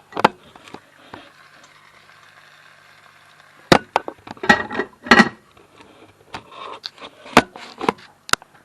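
Irregular sharp knocks and clatter of kitchen utensils and cookware, a few with a brief ringing.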